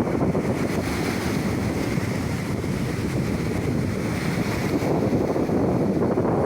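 Sea surf washing in under strong wind buffeting the microphone, a steady, rough rush of noise.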